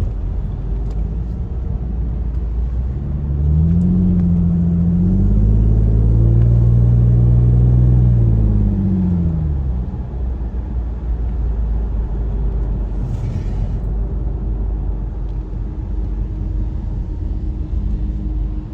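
Infiniti VQ35HR V6 through a Manzo stainless catback exhaust on the stock Y-pipe, driving with a low exhaust drone. About three seconds in, the engine pulls hard and its note rises, holds loud for a few seconds, then falls away near ten seconds as the throttle closes.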